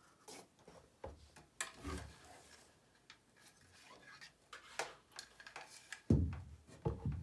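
Light knocks and rubs as a canvas is lifted and shifted on the paper cups propping it up. About six seconds in comes the loudest part, a heavier thump and a few knocks as a long spirit level is laid across the canvas.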